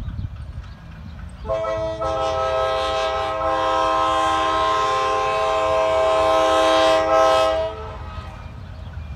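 Nathan K5LA five-chime air horn on a GE C23CM diesel locomotive sounding one long blast of about six seconds: a steady chord of several notes that starts about a second and a half in, dips briefly and then cuts off near the end. A low rumble runs under it throughout.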